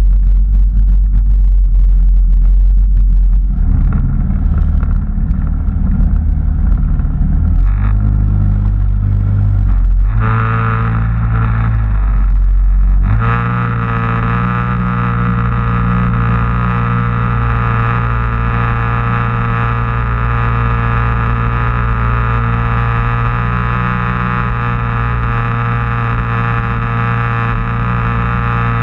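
Sea-Doo personal watercraft engine running at low speed under a heavy low rumble, its pitch shifting a few times. About 13 seconds in it settles into a steady, higher engine note as the craft gets under way.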